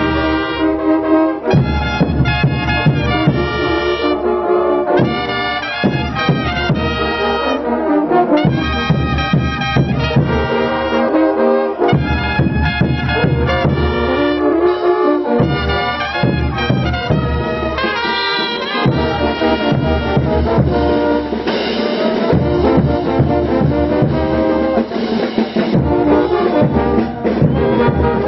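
Brass band playing a dance tune, trumpets and trombones in repeating phrases over a steady drum beat.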